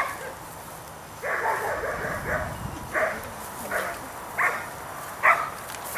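A dog barking over and over, about one short bark a second.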